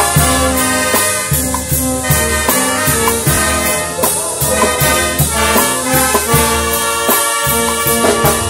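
Brass band of saxophones, sousaphones and baritone horns with drum kit and congas playing a ballad: held horn chords over a steady drum beat.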